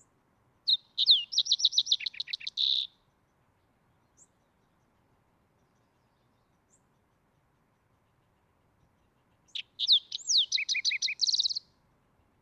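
Green-tailed towhee singing two songs about eight seconds apart. Each song lasts about two seconds: a couple of slurred opening whistles, then a fast trill of repeated notes, ending in a buzzy note.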